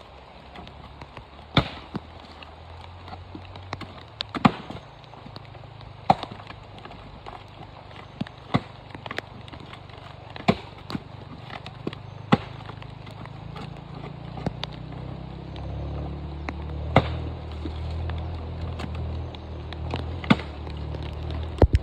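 Hard, sharp blows at uneven intervals of one to two seconds: coconut shells being struck, cracked and split in half, with steady rain beneath them. A low hum comes up in the second half.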